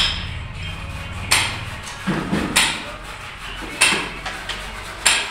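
A series of sharp metallic knocks, about six, roughly a second apart, each ringing briefly, like hammer blows on a building site.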